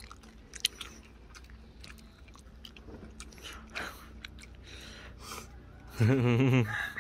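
Close-up chewing and crunching of crispy deep-fried coconut gobies, a scatter of small sharp crunches and clicks. A voice cuts in loudly near the end.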